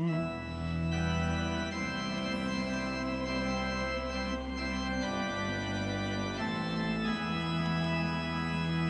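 Organ playing sustained chords over a low bass pedal note. The harmony shifts about five seconds in and again a couple of seconds later.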